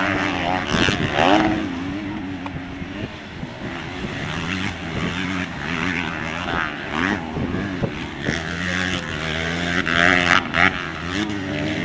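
Several motocross dirt bikes racing, their engines overlapping and revving up and down in pitch as the riders work the throttle.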